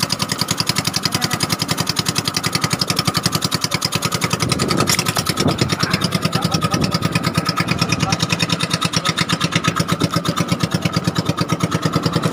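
Small boat engine running steadily, a fast even chugging of about ten beats a second. Around the middle a few brief rising and falling tones and knocks sound over it.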